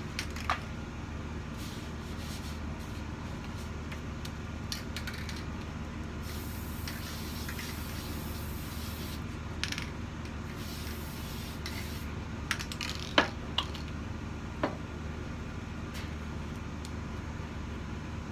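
Aerosol can of spray adhesive hissing in two bursts of a few seconds each, over a steady low hum. A handful of sharp clicks and taps fall around the spraying, the loudest about 13 seconds in.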